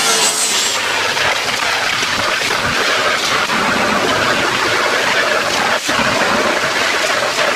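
A power-tool abrasive disc grinding paint off the car body's bare steel, with a high whine that stops about a second in. Then a hand-held disc sander stripping paint from the rear quarter panel, giving a steady abrasive hiss.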